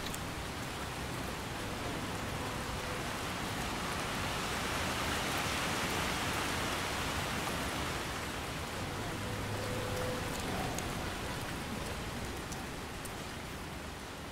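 Steady rain falling as a continuous hiss, swelling slightly midway and easing off near the end.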